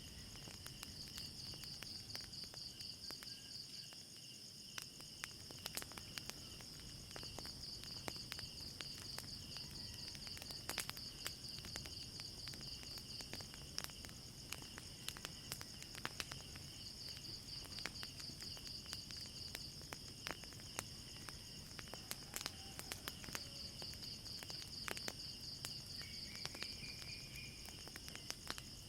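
Crickets chirping in a steady pulsing trill, with scattered sharp crackles from a fire. A brief rising call sounds about three seconds before the end.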